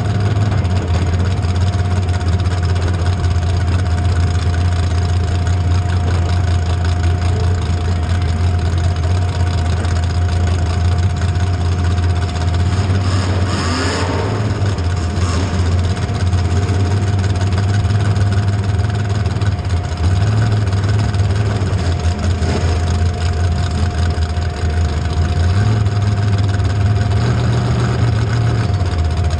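Demolition derby car engine running at a steady low idle, a deep rumble with a steady whine above it, rising slightly a couple of times; a short burst of noise cuts through about fourteen seconds in.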